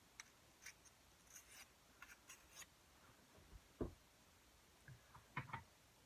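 Faint, short scraping strokes of a steel dagger blade being sharpened, several in the first two and a half seconds, then a few soft low knocks of handling, the loudest about four seconds in.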